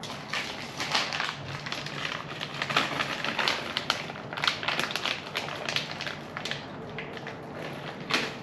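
Small metal hardware of a bumper quick-release kit being handled and tried in a freshly drilled hole: a run of irregular clicks, taps and scrapes, several a second.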